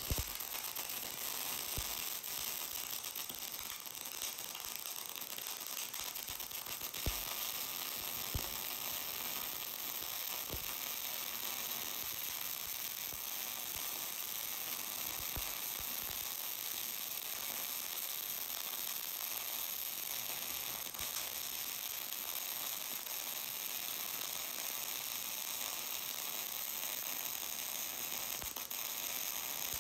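MIG welding arc running a bead with the shielding gas on: a steady crackling sizzle, with a few sharper pops in the first half. The even sizzle goes with a sound weld under good gas coverage.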